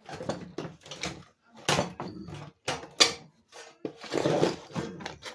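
Sheet-metal case of a Diehard battery charger knocking and rattling as it is handled and pulled at, a run of irregular sharp clanks; the cover will not come free because a 1/4-inch screw is still in place.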